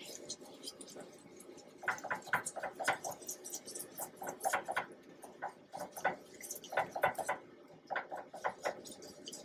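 Silicone whisk stirring brown sugar and cinnamon into melted butter in a nonstick frying pan: soft, irregular scraping and tapping strokes against the pan, starting about two seconds in.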